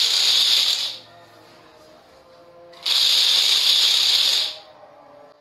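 Makeblock mBot Mega robot's drive motors and mecanum wheels running on a marble floor in short spurts, a high hissing drive noise. It stops about a second in, starts again near three seconds, and runs for about a second and a half before stopping.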